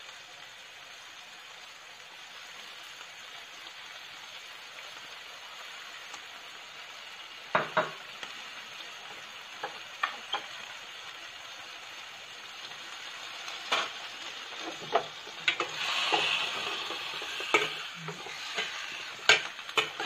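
Chicken pieces sizzling steadily in a stainless steel frying pan. A couple of sharp knocks come about eight seconds in, and in the last few seconds a metal spoon clinks and scrapes against the pan as the chicken is turned, the sizzle swelling briefly as it is stirred.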